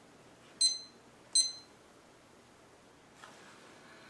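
Two short, high-pitched electronic beeps from the Maverick ET732 wireless thermometer's handheld receiver as its buttons are pressed, under a second apart.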